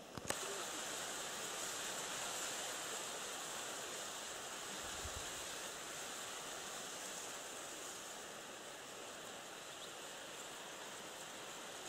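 A single sharp click, then a steady soft hiss of outdoor background noise that fades slowly.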